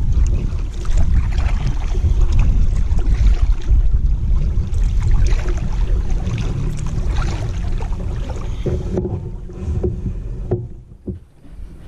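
Kayak on a river: water splashing and paddle strokes over a heavy low rumble of wind on the microphone. About nine seconds in the rumble drops away, leaving quieter water sounds and a few knocks.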